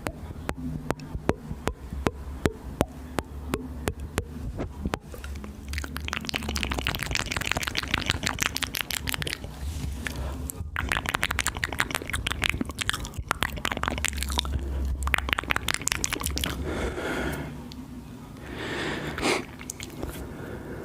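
Close-microphone ASMR mouth sounds: wet tongue and lip clicks, first one by one in a quick string, then packed into a fast, wet crackle, with a softer breathy stretch near the end.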